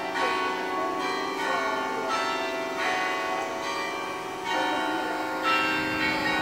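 Automatically rung church bells, struck one after another with a new stroke every half second to a second, each bell still ringing under the next.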